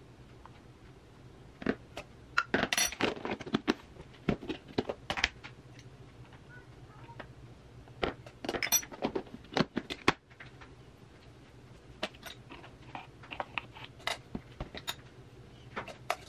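Metal spoon scooping and scraping flour in a plastic measuring cup, with clinks and taps of kitchen utensils against a metal sieve and bowl, in three spells of quick clicks.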